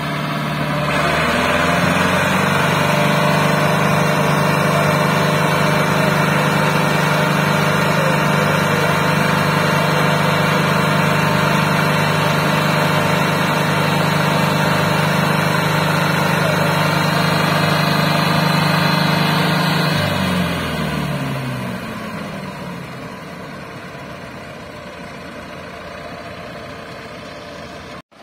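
Ford 6610 tractor's diesel engine opening up to full throttle about a second in and holding a steady high note under heavy load, hauling a sand-laden trolley stuck in mud. After about twenty seconds it drops back to a quieter, lower idle.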